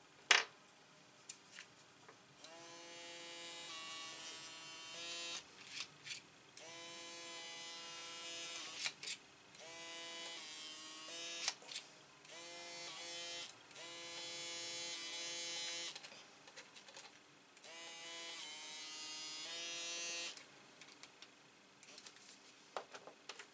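Small electric motor in a pen-shaped handheld tool buzzing at a steady pitch, switched on in about six runs of one to three seconds each. A sharp click comes near the start and smaller clicks fall between the runs, as the tool works on a brass lock cylinder.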